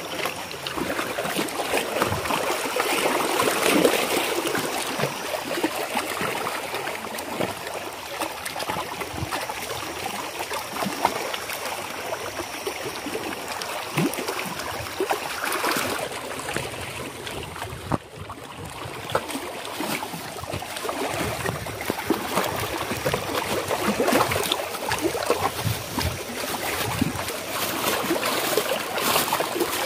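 Water sloshing and trickling as a plastic bag of bait mix is dipped and worked in the lake at a rocky edge, with small waves lapping against the stones.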